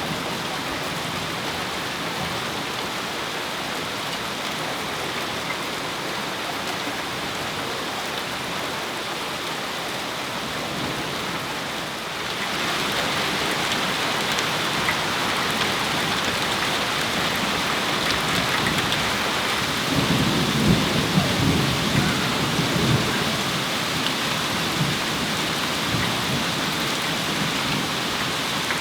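Heavy rain pouring steadily, growing louder about twelve seconds in, with a rumble of thunder about twenty seconds in.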